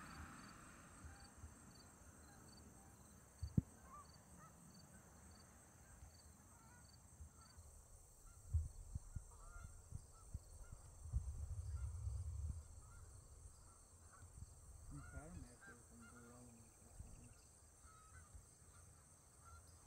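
Distant Canada geese honking faintly, the calls scattered and growing busier as the flock comes down to land. A few low thumps sound on the microphone.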